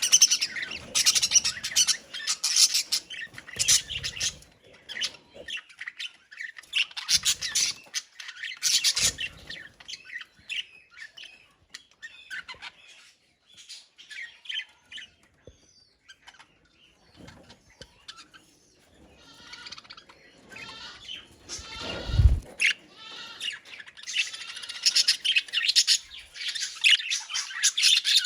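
A colony of budgerigars chattering and chirping together, busy at first, thinning out in the middle and building up again near the end. A single low thump comes about 22 seconds in.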